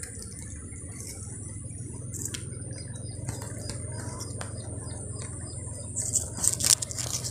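Scattered clicks and scrapes from a handheld phone camera brushing against rough tree bark, with a louder cluster about six seconds in. Underneath runs a steady low hum and a thin, high, steady whine.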